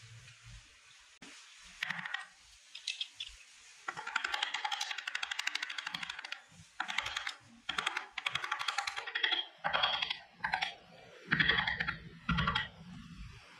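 A thin carving gouge, pushed by hand, cuts grooves into wood in a series of short, crackly scraping strokes. The strokes come sparsely at first and closer together from about four seconds in.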